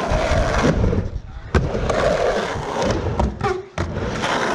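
Skateboard wheels rolling back and forth on a 3-foot mini ramp, with a sharp clack of the board about a second and a half in.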